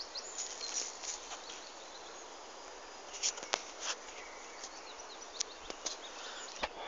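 Soft footsteps crunching on dry fallen leaves and twigs, a scattering of sharp crackles, with faint bird chirps in the background.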